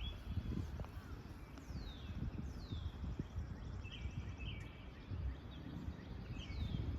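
Park ambience of birds calling: three whistled calls that slide down in pitch, plus scattered short chirps, over a low rumble of background noise that is the loudest part.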